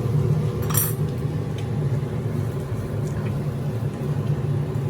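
A single bright metallic clink of a utensil about a second in, over a steady low hum, with a couple of faint ticks afterwards.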